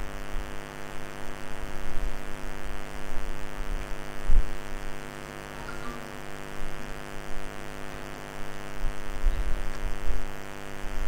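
Steady electrical mains hum with a buzz of many overtones, broken by a few dull low thumps, the strongest about four seconds in.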